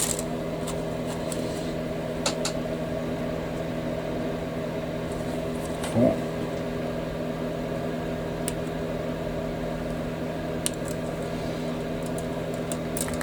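Steady machine hum made of several held low tones, with a few light clicks scattered through it, typical of small plastic model-kit parts and tools being handled on a workbench.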